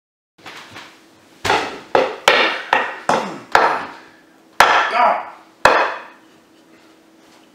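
About eight sharp whacks of a flat object being swung and struck, coming irregularly from about a second and a half in until near six seconds, each ringing off briefly.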